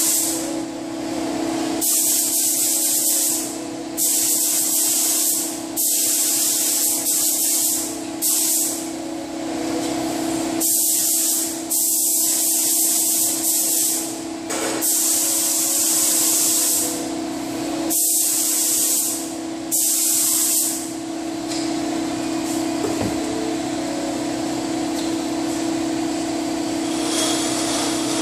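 SATA paint spray gun spraying a car fender: loud hissing spurts of atomising air and paint, one pass every two seconds or so, about nine in all, stopping about twenty seconds in. A steady hum runs underneath throughout.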